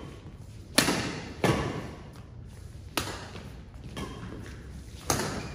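Badminton rackets striking a shuttlecock during a fast doubles rally: about five sharp hits, irregularly spaced, each ringing on in the hall's echo.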